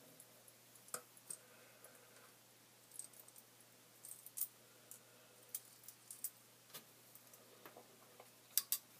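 Sparse faint clicks of a small pair of cutters worked at the barb of a fishing hook, ending in two sharper clicks close together near the end.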